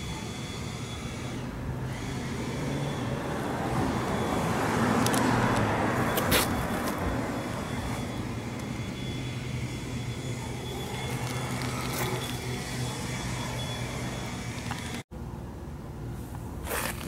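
A motor vehicle passes by outdoors, its noise swelling to a peak about five seconds in and then fading, over a steady low hum. There are a few faint clicks, and the sound drops out for an instant near the end.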